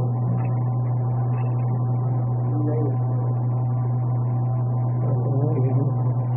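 Steady low hum, with faint voices murmuring in the background now and then.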